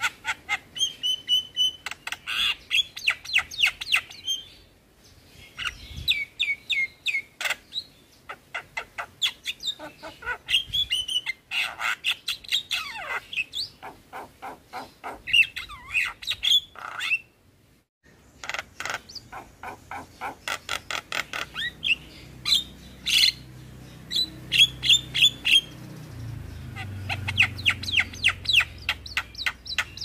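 Javan myna singing in long, rapid runs of chattering clicks, whistles and squawks, broken by two short pauses. A low rumble comes in underneath after about twenty seconds.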